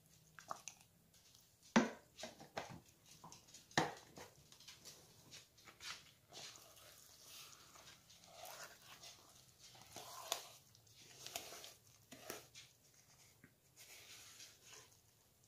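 Metal spoon stirring thick cornmeal-and-buttermilk batter in a plastic mixing bowl: irregular soft scraping and clicking, with a few sharp knocks in the first four seconds, the loudest about two and four seconds in.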